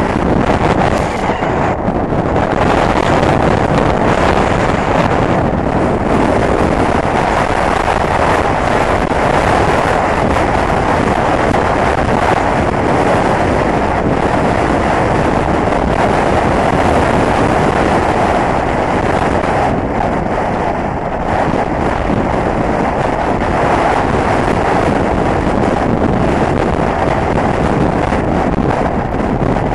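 Strong wind buffeting the microphone: a loud, steady rush of wind noise that eases slightly about twenty seconds in.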